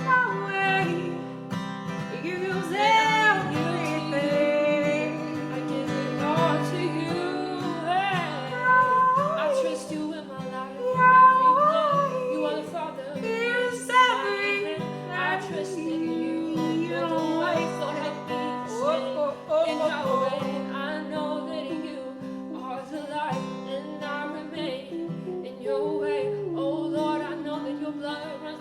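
Singing with acoustic guitar accompaniment, the voice sliding and wavering in pitch over held guitar chords.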